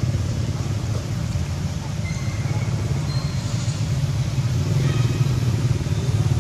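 A motor engine running steadily with a low, even rumble.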